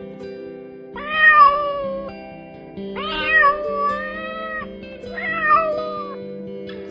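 Domestic cat meowing three times, each a long drawn-out call, the middle one longest, over background music with steady plucked notes.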